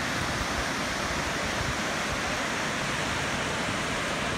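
Waterfall pouring over a wide rock ledge into a pool: a steady, even rush of falling water.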